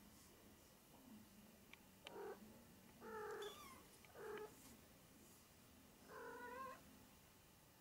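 Maine Coon cats mewing: four short, faint pitched mews spaced a second or two apart, the second one a little longer and falling at its end.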